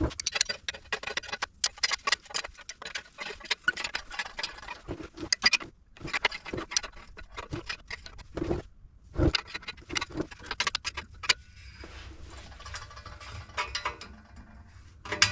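Hand ratchet clicking in rapid runs as the exhaust pipe's flange bolts are tightened, with short pauses between runs. The clicking thins out about three-quarters of the way through.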